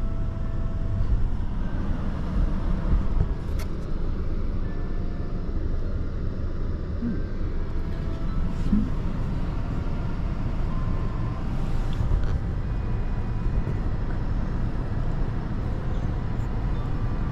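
Steady low rumble inside a parked car's cabin, with a few faint clicks.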